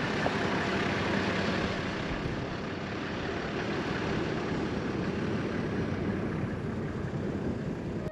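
Toyota Land Cruiser HZJ79's diesel engine running steadily with rumbling road noise, heard from the vehicle.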